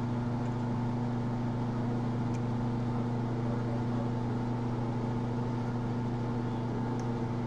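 A steady low motor-like hum runs throughout. Two faint ticks, about 2 and 7 seconds in, are the pick tools working the sliders of an OnGuard slider U-lock.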